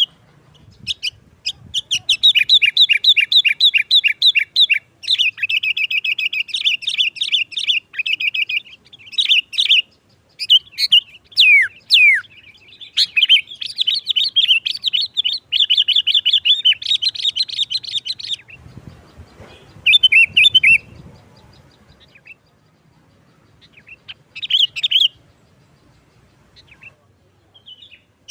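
Sooty-headed bulbul (kutilang) singing: long runs of fast, repeated chattering notes. About two-thirds through, the song breaks off into a pause with a low rumble and one short phrase, then only a few short bursts near the end.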